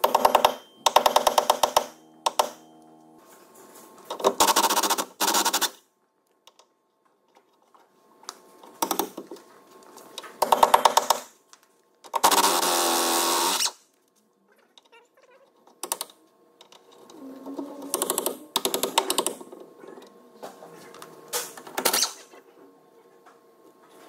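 Air impact wrench hammering on rusty, tight leaf-spring and shock absorber bolts in repeated bursts of a second or two, with quiet gaps between, to crack them loose. One longer continuous run comes near the middle.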